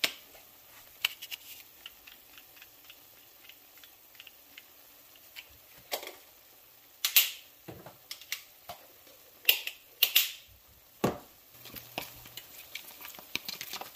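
Scattered light clicks and taps of kitchen utensils and containers, with a few sharper taps about six, seven, ten and eleven seconds in, over a faint crackle of onions simmering in liquid in a griddle pan.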